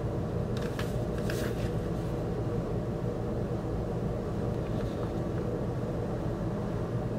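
Steady low mechanical room hum, with brief crinkling of plastic shrink wrap about a second in as a sealed vinyl record sleeve is turned over in the hands.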